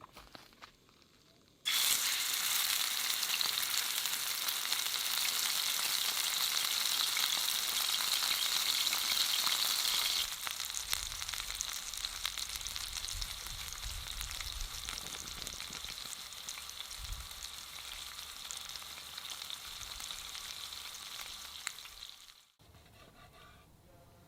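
A steady sizzling crackle that starts abruptly about two seconds in, turns a little quieter and deeper around ten seconds, and cuts off sharply near the end.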